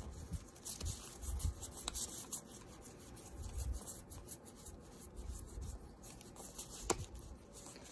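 Pokémon trading cards handled by hand: card stock rubbing and sliding against card and table, with soft taps. A single sharp click near the end.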